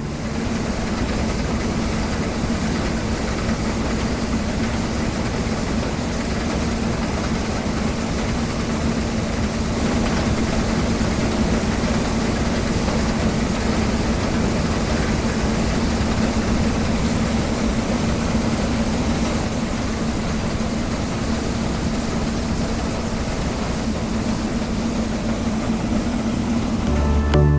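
New Holland CX6.80 combine harvester running steadily under load while harvesting wheat: engine and threshing machinery giving an even mechanical rumble with a constant low hum.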